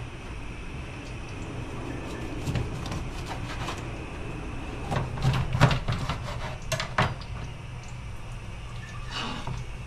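Kitchen handling sounds: utensils and containers clicking and knocking, in short bursts a few seconds in and a louder cluster around the middle, over a steady low hum.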